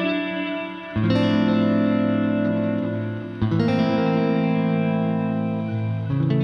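Clean electric guitar chords played through an Empress Reverb pedal on its filtered feedback delay setting. A new chord is struck about a second in, again at about three and a half seconds, and again near the end, each one ringing on in long, slowly fading delay and reverb trails.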